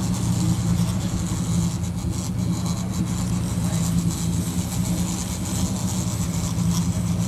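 Fishing boat's engine running steadily: a low, even drone.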